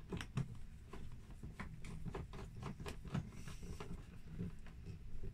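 Small hand screwdriver driving a screw into a car's plastic interior door panel by the handle, making faint, irregular light clicks and ticks as the screw turns.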